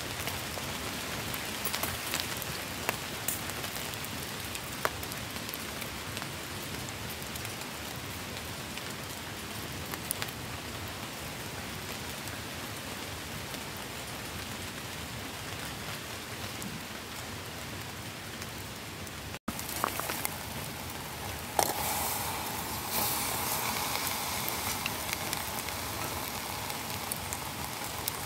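Steady rain falling on woodland leaves, with a few sharp crackles from a wood fire burning in a small folding box stove. After a brief break about two-thirds of the way in, a louder steady hissing sizzle starts as burning logs are quenched in a pot of water, throwing up steam.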